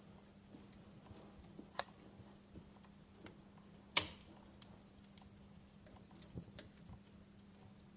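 Fire crackling: faint, scattered pops and snaps, the sharpest about four seconds in and another a couple of seconds before it, over a faint steady low hum.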